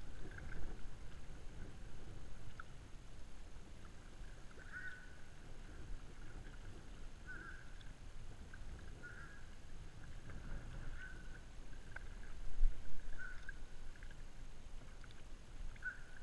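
Kayak paddle strokes in calm river water, with a low uneven rumble of water and wind on the camera. Short high chirps repeat every second or two, and there is a louder thump about twelve and a half seconds in.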